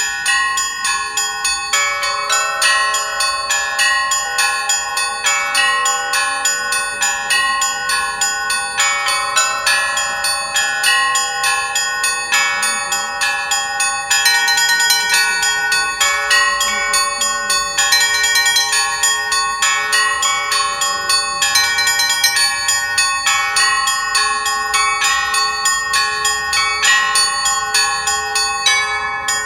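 Church bells ringing a continuous peal: several bells of different pitches struck in a fast, repeating rhythm, several strikes a second, each note ringing on under the next. Small high bells join in brief quick runs three times midway.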